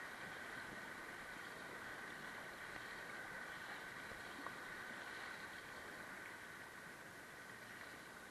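Steady rush of shallow Class I–II river rapids running over rocks around a kayak, with one faint knock about four and a half seconds in.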